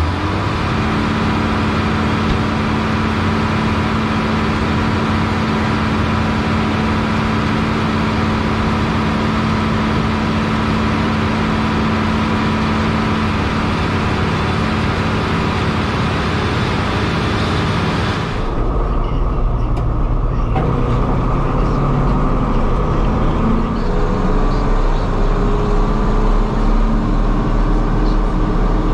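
Farm tractor engine running steadily under way. About two-thirds of the way through, the sound changes abruptly to a deeper, lower engine note.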